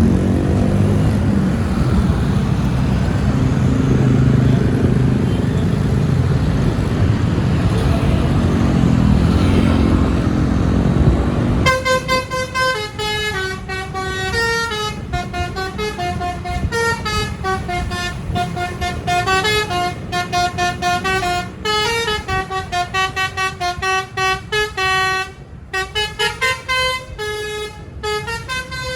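A loud, steady rumble of vehicle engines and street noise. About twelve seconds in, a bus's telolet horn, a multi-trumpet musical horn, starts playing a melody of quick stepping notes, up and down. It keeps going with brief gaps.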